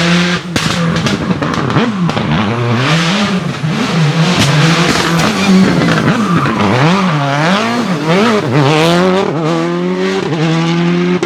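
Citroën Xsara WRC's turbocharged four-cylinder engine revved up and down over and over, with sharp pops and cracks among the revs, then settling back to a steady idle near the end.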